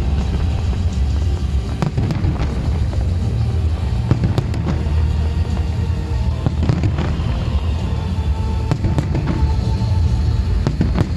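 Aerial fireworks bursting in quick, irregular succession over a continuous low rumble of distant bangs, with music playing alongside.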